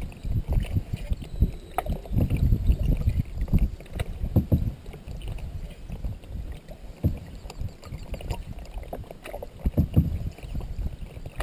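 Paddle strokes of a wooden canoe paddle pulling through the water beside a skin-on-frame canoe, water swishing past the hull in uneven pulses, with a few light clicks.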